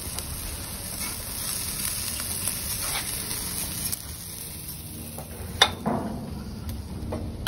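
Food sizzling on a barbecue grill over a fire that is running too hot, with a few sharp clicks in the second half.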